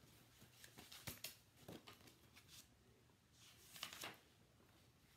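Faint rustling and light clicks of a paper picture book being handled and its pages moved, in a first spell over the opening seconds and again briefly about three and a half seconds in.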